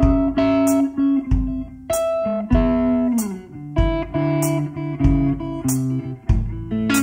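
Live blues band playing a slow introduction: electric guitar picking notes with a string bend, over low bass notes. A sharp high percussion hit falls about every second and a quarter.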